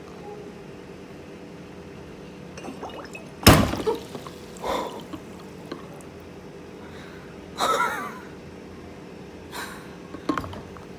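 Water sloshing and gurgling in a plastic basin as hands work under the surface and carbon dioxide bubbles up into an upturned beaker. A few short splashes and gurgles, the loudest about three and a half seconds in and another near eight seconds, over a steady low hum.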